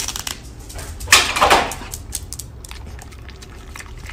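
Foil lid being peeled off a small plastic dessert cup: a rasping tear about a second in, with light crinkling clicks around it.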